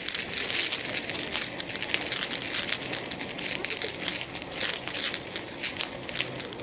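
Standard Fireworks Star Jet fountain firework burning: a steady hiss from its spark jet, peppered with dense, irregular crackles.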